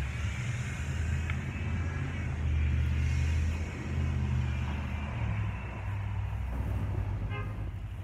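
Low engine rumble of a nearby motor vehicle, swelling and easing over the few seconds.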